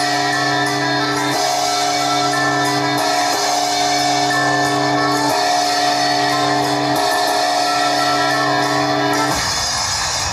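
Music with long held chords, changing every couple of seconds, that cuts off about nine seconds in, leaving a quieter background rumble.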